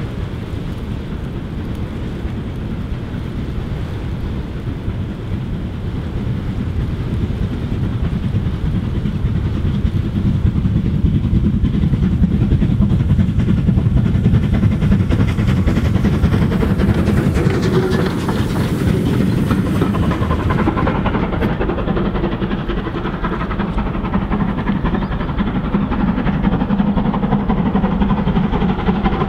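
Rebuilt Bulleid light Pacific steam locomotive 34053, a three-cylinder 4-6-2, working a passenger train past at speed: its exhaust and the rolling of the train swell to a peak and then fade. About two-thirds of the way in it cuts to another steam-hauled train approaching from afar.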